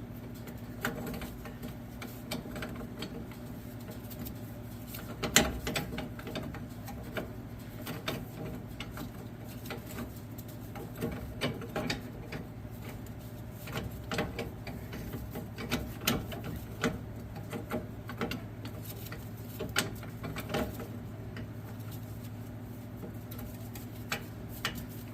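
Scattered, irregular metallic clicks and knocks of hand tools and hardware as nuts are worked onto new U-bolts, the loudest knock about five seconds in, over a steady low electrical hum.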